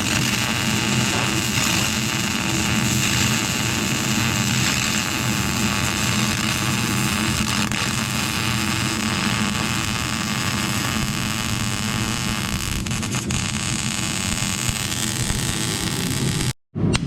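Steady, loud machine noise from shop tool work: a broad hiss over a low hum. It cuts out abruptly for a moment near the end.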